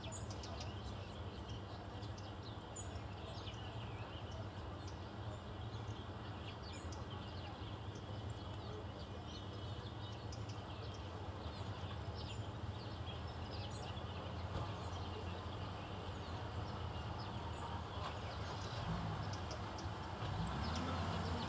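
Steady outdoor background noise from a distant crowd, with scattered faint high chirps and ticks throughout and a low hum underneath; a low sound swells briefly twice near the end.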